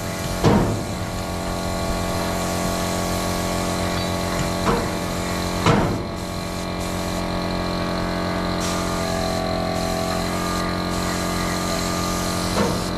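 Compressed-air paint spray gun hissing as it sprays, the hiss cutting out briefly several times in the second half as the trigger is released, over the steady hum of the air compressor feeding it. A few short knocks over the top.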